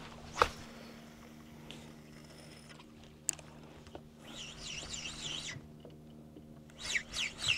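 Birds calling: a warbling high song in the middle and a quick run of sharp, falling chirps near the end, over a faint steady hum and a couple of light clicks.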